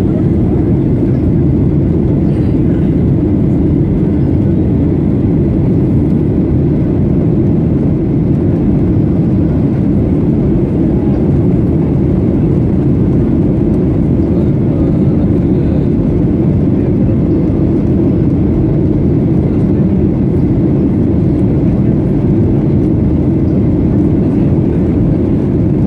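Steady cabin noise inside a Boeing 737-800 in flight: the CFM56-7B engines' low roar mixed with the rush of airflow, unchanging throughout.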